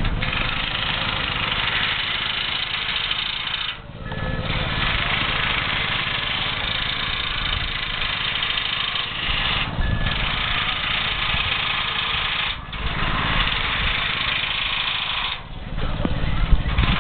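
Truck-mounted crane's diesel engine running steadily, with a rough low rumble and a hiss on top, breaking off briefly four times.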